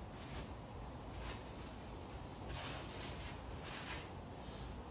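Low room noise with a few soft, brief rustles of hands handling parts.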